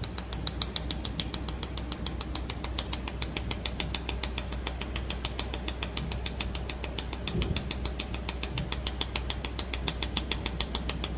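Mould-repair YAG laser welding machine firing in automatic mode: a sharp tick with each laser pulse, about six or seven a second, evenly spaced throughout, over a low steady machine hum.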